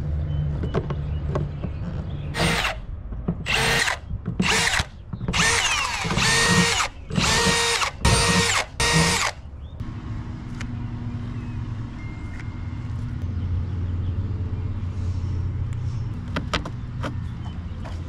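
Power drill run in about seven short bursts of whirring, each starting and stopping sharply, with the motor's pitch holding steady within each burst, during pool skimmer and fitting installation. The bursts end about nine seconds in.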